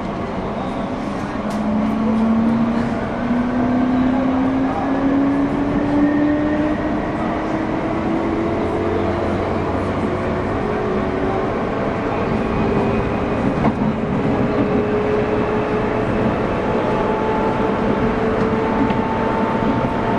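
JR 201 series electric train heard from inside its motor car MoHa 200-200: the traction motors whine and climb steadily in pitch as the train gathers speed, over a constant rumble of wheels on rail. This car carries no chopper equipment, so there is no chopper whine. A brief click comes a little past halfway.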